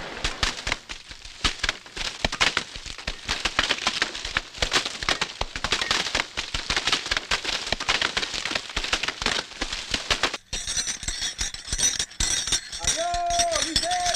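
Fire crackling and popping densely and irregularly. About ten seconds in it cuts off, giving way to a steady high hiss, and near the end a voice calls out two short times.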